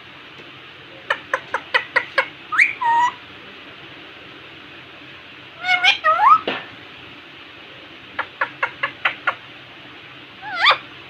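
Indian ringneck parakeet calling: groups of short, sharp chirps and whistled notes that bend up and down, in four bursts with pauses between, over a steady background hiss.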